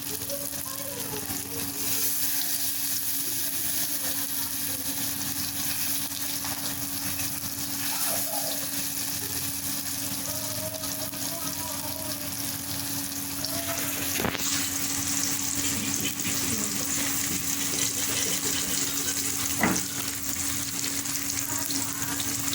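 Masala-coated fish pieces shallow-frying in oil in a kadai: a steady sizzle. A sharp click comes about two-thirds of the way through, after which the sizzle turns brighter, and a short knock follows near the end.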